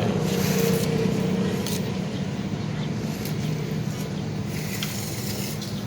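A motor running steadily with a low, even hum, slowly fading.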